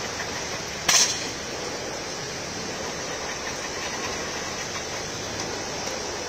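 Heavy rain falling in a steady hiss, with one short sharp burst about a second in.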